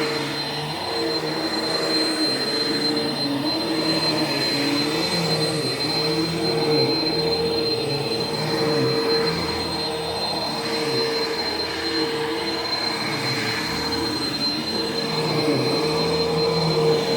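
Vacuum cleaner running steadily, a constant motor whine over the rush of air, with lower tones that shift up and down as it is worked over the floor.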